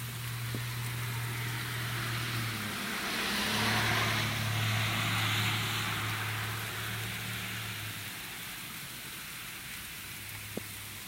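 Freezing rain coming down in a steady hiss. A car passes on the wet, icy road about halfway through, its tyre hiss swelling and fading over several seconds. A low steady hum runs underneath.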